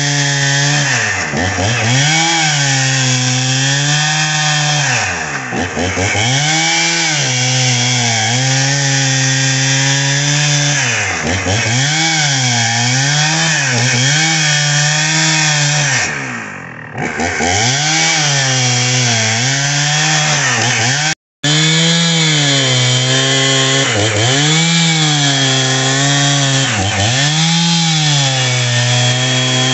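Husqvarna 61 two-stroke chainsaw running at high revs while ripping a log lengthwise along the grain. The engine note sags and recovers every couple of seconds as the chain bites into the wood. The sound breaks off briefly about two-thirds of the way through.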